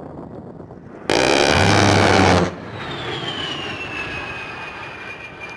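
A-10 Thunderbolt II's 30 mm GAU-8 Avenger rotary cannon fires one burst of about a second and a half, a loud buzzing rip with a steady low hum that starts and stops abruptly. Then the jet's TF34 turbofan whine falls in pitch and levels off as the aircraft passes.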